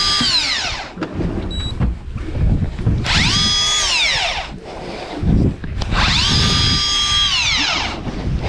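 Electric fishing reel's motor winding in line in repeated bursts, each whine rising in pitch, holding, then falling away: three bursts about three seconds apart, as a big, fighting fish is brought up from depth.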